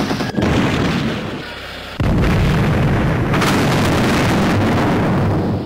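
Naval gunfire and shell explosions, loud and continuous. A louder, steady roar starts suddenly about two seconds in.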